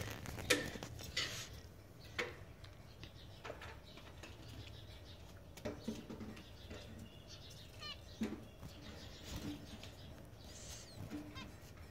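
Pet finch in a wire cage, giving short chirps every few seconds and fluttering its wings as it flits between perches.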